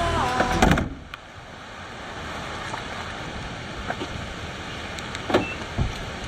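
Music ends under a second in, then a car's steady running noise with a few short clicks and knocks.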